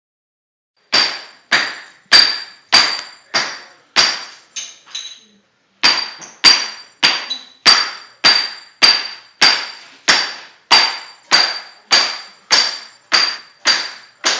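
Steady hammer blows busting up floor tile, about one every 0.6 seconds, each with a short ringing note. There is a brief pause a little after four seconds, then the blows go on at the same pace.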